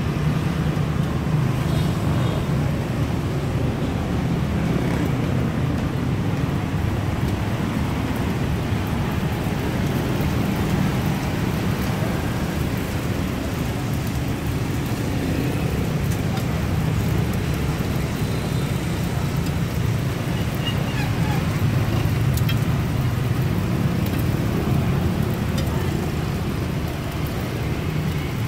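Steady street traffic, mostly motorbikes, running by continuously at an even level.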